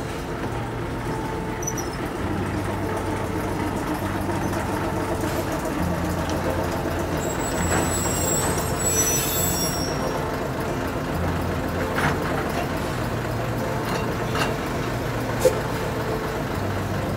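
Steam tank locomotive standing on a turntable with a steady low mechanical drone. About eight seconds in comes a hiss of escaping steam, and near the end a few sharp clicks.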